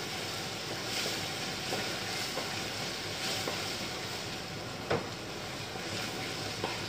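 Onion and tomato sautéing in oil in a stainless steel pot, a steady sizzle as it is stirred with a metal spoon, with one sharp clink about five seconds in.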